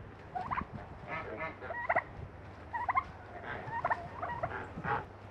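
Farmyard poultry calling: a run of short, repeated calls from the flock of geese, ducks and a turkey.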